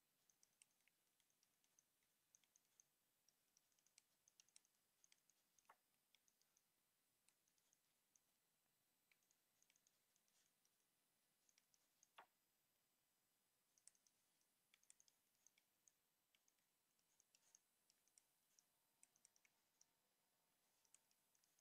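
Near silence, broken by faint, irregular clicks and ticks of a stylus tapping and moving on a tablet screen while writing. Two slightly louder clicks come about six and twelve seconds in.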